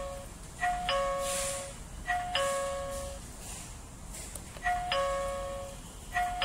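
Daytech wireless calling-system receiver sounding its two-note ding-dong chime, a higher note then a lower one, four times, once for each call button pressed; each chime means the receiver has picked up the button's call.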